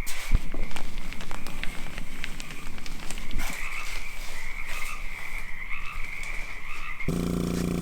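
A chorus of frogs calling steadily, with scattered clicks and crackles over it. About seven seconds in, it cuts suddenly to a steady, even machine hum.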